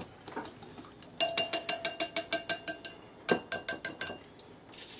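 A utensil beating quickly against a ringing bowl while a liquid marinade is mixed: a fast run of clinks, about nine a second, for a second and a half, then a second shorter run.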